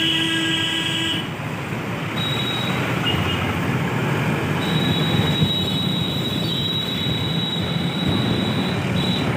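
A vehicle horn blares for about the first second and cuts off. After that comes the steady rumble of a road vehicle driving along, with a thin high whine that comes and goes.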